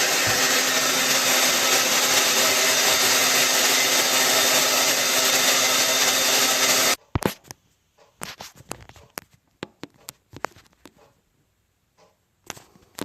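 Hair dryer running on hot and high: a steady loud blowing rush with a low hum, which stops abruptly about seven seconds in. After that come a few scattered faint clicks and knocks.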